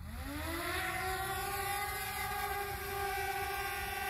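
Small quadcopter drone's motors spinning up for takeoff: a whine that rises in pitch over about the first second, then holds steady as the propellers lift it off the pad.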